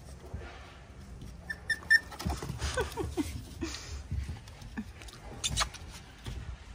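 Puppies whimpering and yipping in short cries, several of them falling in pitch, mixed with paws pattering and knocking on wooden deck boards.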